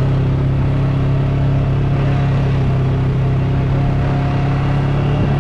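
Motor vehicle engine running at a steady speed: a loud, constant low drone that holds one pitch throughout.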